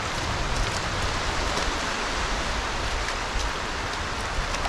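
Steady wind noise buffeting the microphone, over the wash of shallow water at the shoreline, with a few faint clicks.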